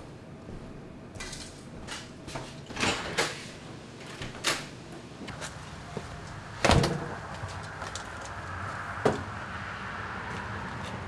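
A few light knocks and clatter as gear is handled, then a door banging shut about two-thirds of the way in, with a smaller knock a couple of seconds later. A steady outdoor background hiss follows the bang.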